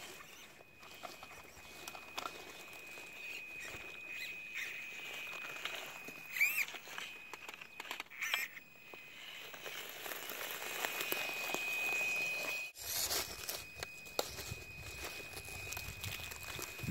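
WPL C24 RC crawler truck driving through dry leaves and twigs: a steady high electric whine from its motor and speed controller, with crackling and rustling from the tyres on the brush. Two brief louder wavering sweeps come about six and eight seconds in.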